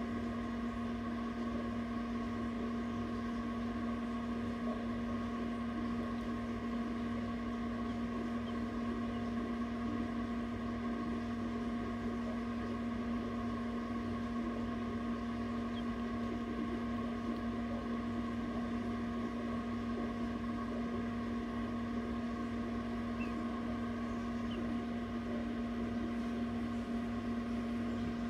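Egg incubator running with a steady electric hum, one low tone and a few fainter higher ones, unchanging throughout.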